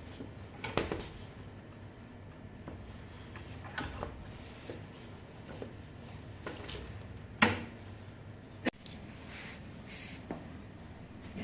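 Scattered knocks and clicks of tools and metal scooter parts being handled during wheel and brake disc disassembly, with a sharp, loud knock about seven and a half seconds in and another a second later.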